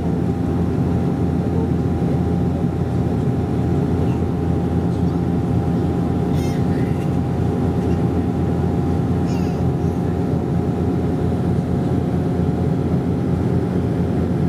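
Steady in-cabin drone of a Bombardier DHC-8 Q400's turboprop engines and propellers in flight: a loud, even low rumble with steady humming tones on top.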